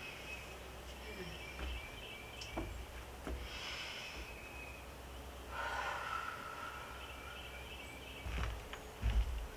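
Outdoor ambience: small birds chirping over and over, under a steady low rumble, with a couple of rustles and swishes and a few low bumps near the end.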